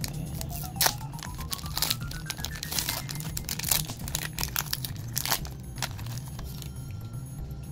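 A foil Pokémon booster pack wrapper crinkling and tearing as it is ripped open by hand, a run of sharp crackles that are loudest about a second in and near four seconds, over steady background music.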